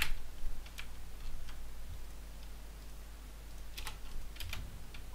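Computer keyboard and mouse clicks at a desk: one sharp press at the start, a few faint scattered clicks, and a quick little run of clicks about four seconds in, over a steady low hum.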